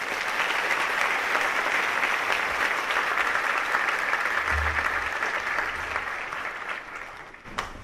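Audience applauding steadily, dying away near the end, with a single sharp click just before it ends.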